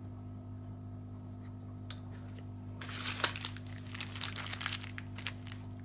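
Canvas lock pick case being handled and folded, a burst of rustling and crackling with small clicks from about halfway through, over a steady low hum.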